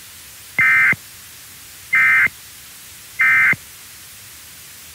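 Three short buzzy data bursts of an Emergency Alert System end-of-message (SAME) code, about a second apart, over steady static hiss.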